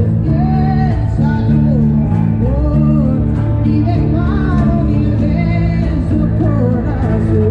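A band playing a song: a singer's melody over guitar and bass.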